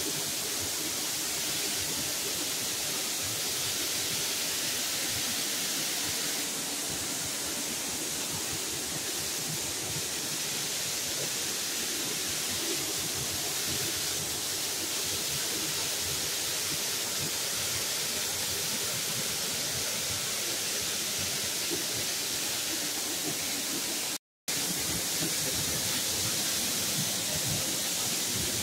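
Dry Falls on the Cullasaja River, heard from behind its falling curtain of water: a steady, even rush of water running with good flow. Near the end the sound drops out completely for a split second.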